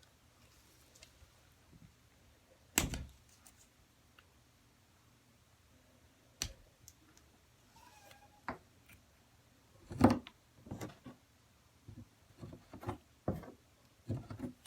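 Scattered knocks and clicks of objects being handled, a sharp one about three seconds in, the loudest cluster about ten seconds in, and a run of lighter taps near the end.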